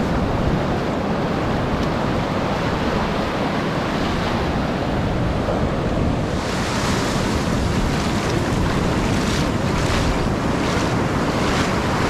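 Ocean surf breaking and washing up the beach, with wind buffeting the microphone in a low rumble. About six seconds in, a hissing foamy wash grows louder.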